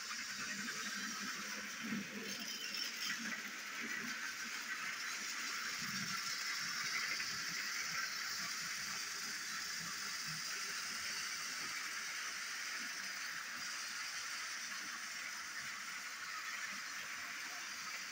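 Battery-powered toy train running around a plastic track pulling a string of cars: a steady motor whir, with light rattling and clicks from the wheels and couplings in the first several seconds.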